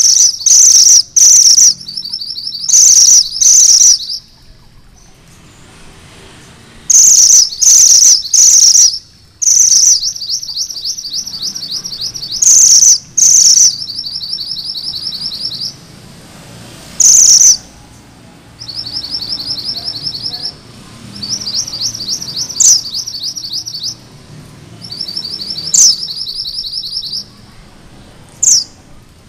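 Mantenan gunung merah (a red minivet) singing: groups of short, loud, high notes alternate with fast rolling trills ('ngerol'), the pattern repeating over and over.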